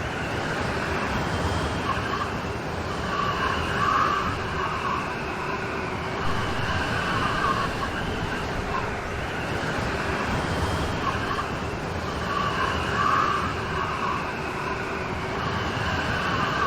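Steady rain falling, with a wavering mid-pitched tone that swells and fades about every nine seconds.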